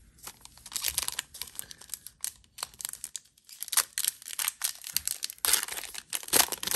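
Foil trading-card pack wrapper being torn open and crinkled by hand, in irregular crackling bursts that grow louder toward the end.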